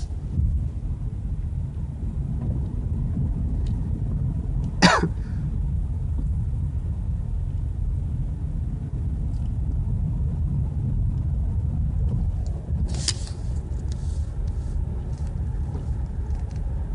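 Car driving, heard from inside the cabin: a steady low rumble of engine and road noise. A single sharp knock about five seconds in, and a short noisy burst about thirteen seconds in.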